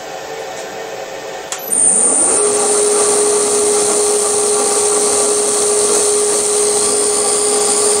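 Milling machine spindle switched on with a click about a second and a half in, its motor running up to speed within about a second and then running steadily with a steady hum and a high whine.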